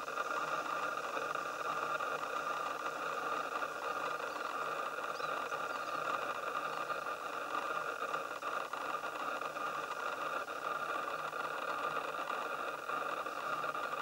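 A steady mechanical hum with hiss, unchanging throughout.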